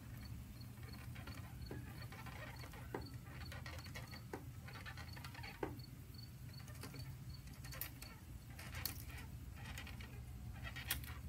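Knife slicing a seared venison tenderloin on a cutting board: soft sawing strokes, with a tap of the blade on the board four times about a second and a quarter apart in the first half. Underneath runs a steady chirp of crickets, about three pulses a second.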